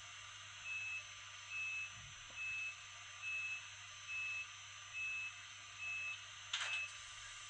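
Door-closing warning signal from the sound function of a Fleischmann N-scale ICE-T model train: eight short, high beeps a little under a second apart. A brief burst of noise comes near the end as the door shuts.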